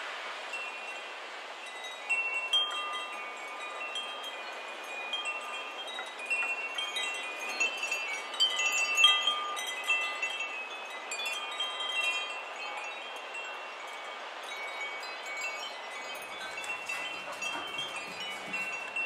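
Wind chimes tinkling: many short, overlapping high notes struck at random over a steady hiss, busiest in the first half.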